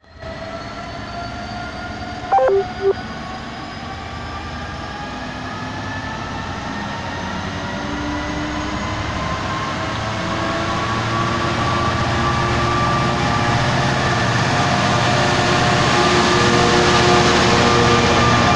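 Class 66 diesel freight locomotive's two-stroke V12 engine under power, its note slowly rising and growing louder as it pulls a container train past. About two seconds in, a short, loud two-note horn blast, high then low.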